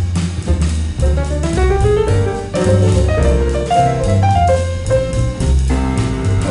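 Background instrumental jazz-style music with a steady beat and a moving bass line.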